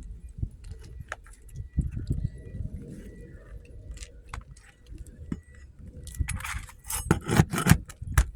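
Metal roofing tools scraping and clinking against nails and asphalt shingles while nails are worked loose, with a quick run of sharp metallic clinks and rattles starting about six seconds in.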